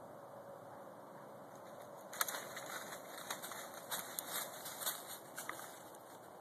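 Dry sticks and brushwood snapping and crackling as a Central Asian Shepherd dog roots and bites through a brush pile. An irregular run of sharp cracks begins about two seconds in, the first one the loudest.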